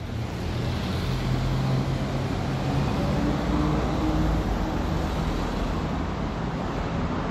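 Lamborghini Urus twin-turbo V8 running at low speed as the SUV drives slowly past and away, a steady low engine note loudest in the middle.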